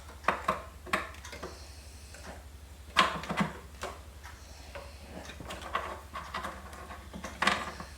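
Scattered clicks and knocks of computer parts and cables being handled inside a PC case, the loudest knock about three seconds in and another cluster near the end, over a steady low hum.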